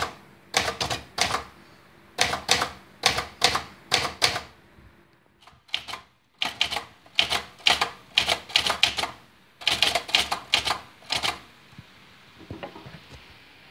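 Manual typebar typewriter being typed on: the typebars strike the paper in quick runs of several keystrokes, with short pauses between runs. The typing stops near the end.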